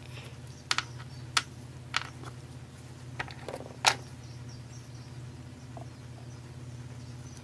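Light clicks and taps of small bolts and a thread-locker bottle being handled on a wooden workbench, a handful of separate clicks with the sharpest nearly four seconds in, over a low steady hum.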